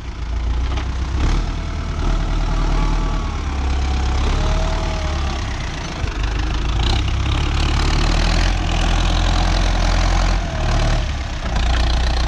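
Tractor engine running steadily under load while pulling a plough through soft, wet soil, with a brief dip in the sound a little before the end.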